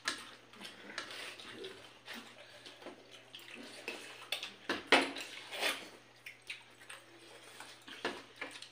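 Eating by hand from steel plates: irregular wet squelches and smacks of rice and curry being mixed and chewed, with light clinks on the plates. The loudest comes a little under five seconds in.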